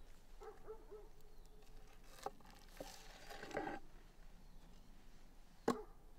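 Faint, short whining calls from an animal, with a sharp click a little over two seconds in and a louder one near the end.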